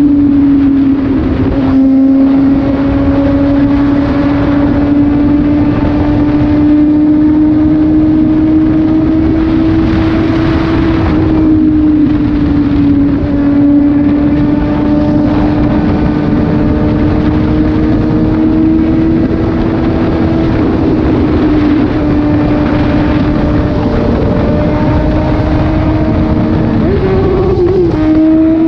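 Suzuki GSX-S750's inline-four engine running through an SC-Project slip-on exhaust with the dB killer removed, under way with a loud, steady note. The pitch creeps slowly upward and steps down a few times, then jumps up near the end.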